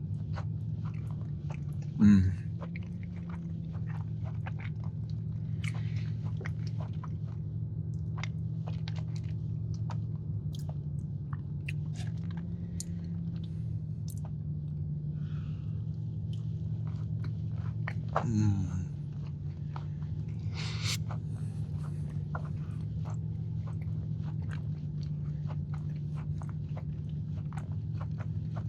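Close-up chewing of a soft, underbaked blueberry muffin cookie with streusel topping: many small wet mouth clicks, over a steady low hum. Two short louder sounds with a falling pitch, about two seconds in and again near eighteen seconds.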